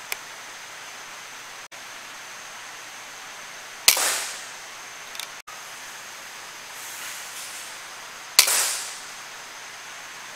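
Two shots from a PCP air rifle, about four and a half seconds apart, each a sharp crack with a short fading tail, over a steady background hiss.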